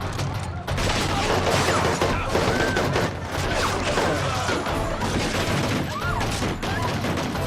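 A sustained firefight: rapid, overlapping bursts of automatic gunfire with no break.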